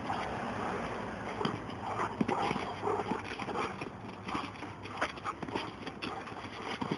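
Dogs scampering about, with irregular footfalls and scuffs on the ground.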